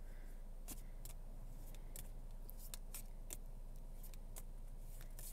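Faint, irregular clicks and snaps of a deck of oracle cards being shuffled by hand, over a low steady hum.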